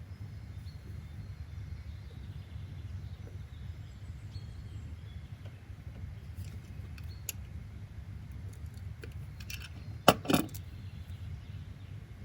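Steady low ambient rumble with faint high bird chirps. A few light clicks come midway, then two sharp knocks in quick succession about ten seconds in.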